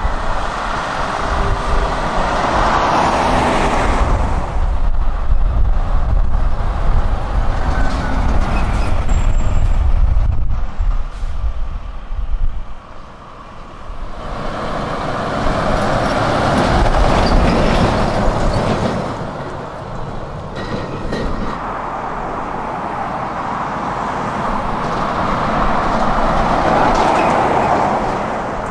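Articulated lorries, a Renault T tractor unit among them, driving past close by: diesel engine rumble and tyre noise. One heavy pass fills the first half, and after a brief lull about halfway a second lorry's tyre and road noise swells and fades.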